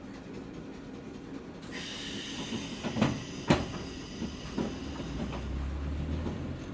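Hakone Tozan Railway Moha 1 electric car running, heard from on board, with its nose-suspended traction motors and wheels on the rails. A high ringing whine sets in about two seconds in. Two sharp wheel knocks over rail joints come about a second later, half a second apart, followed by lighter clacks and a low motor hum.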